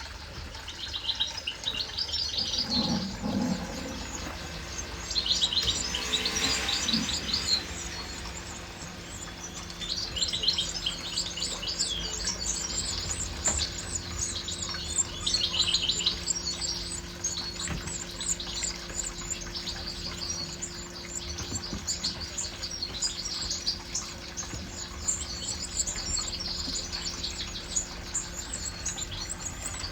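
European goldfinches chirping and twittering in fast high trills, in repeated bouts that swell and fade, over a faint steady low hum.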